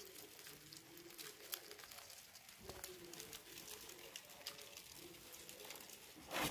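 Dubia roaches feeding on strips of orange vegetable: faint, rapid, irregular clicking and crackling from their chewing and scrabbling legs, with one louder knock near the end.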